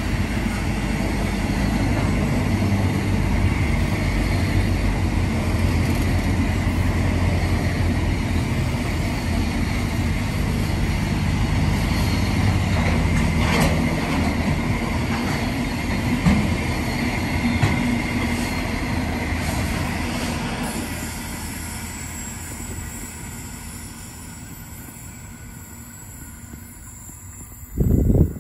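A freight train rolling past on the track, a steady rumble of wheels and wagons that fades away over the last several seconds as it moves off. A brief loud thump comes right at the end.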